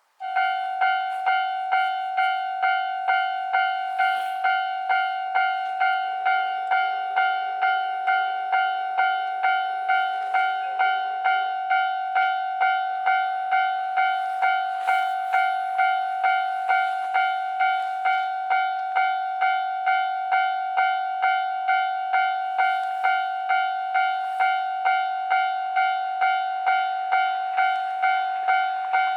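Japanese railway level crossing warning bell starting up suddenly and ringing in a steady, even beat of about two strikes a second, the signal that a train is approaching.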